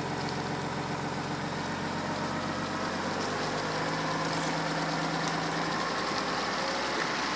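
Pickup truck engine running at low speed as the truck tows a boat trailer slowly past, a steady hum.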